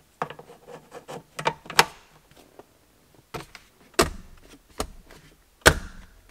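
Sharp clicks and knocks of hard plastic and metal as the file hanger rails are set back into a steel console vault, then the centre console lid shutting with heavier thumps about four and about five and a half seconds in.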